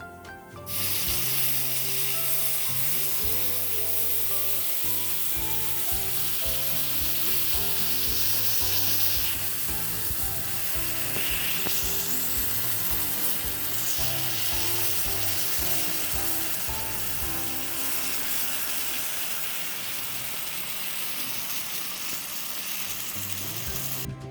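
Hot sizzler plate sizzling as chocolate ganache is poured onto it. It starts abruptly about a second in and carries on as a steady hiss, over light background music.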